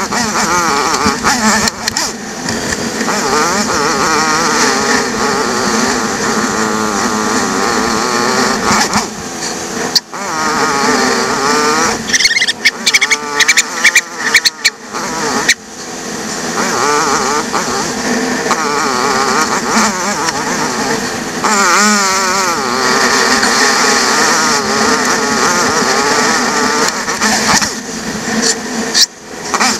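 BMW F800GS parallel-twin motorcycle engine running under varying throttle as the bike rides over beach sand, its pitch constantly rising and falling, sped up to double speed. A flurry of sharp knocks and rattles comes about halfway through.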